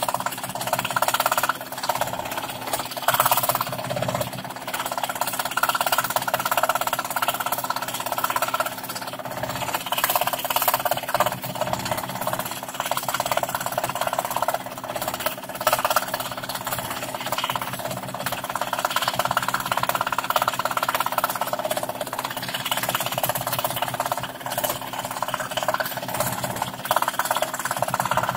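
Scroll saw running, its reciprocating blade cutting through plywood: a steady motor hum under the rasp of the cut, which swells and eases as the piece is fed.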